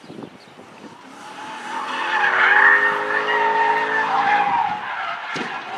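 BMW sedan drifting: its engine held at high revs while the rear tires squeal, the squeal swelling loud about two seconds in and easing off near the end.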